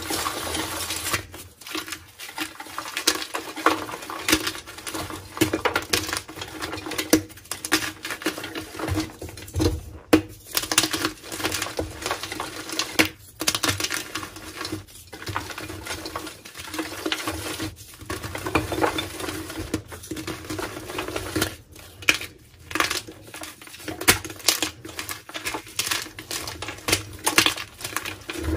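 Reformed gym chalk blocks being squeezed and crumbled by hand: a dense, irregular crunching and crackling of breaking chalk and falling powder, with louder cracks here and there.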